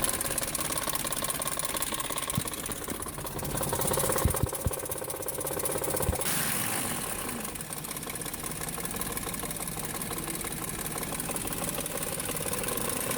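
BMW 540i engine running at idle with a steady mechanical rattle, the sound of worn timing chain guides. A few sharp knocks stand out in the first six seconds.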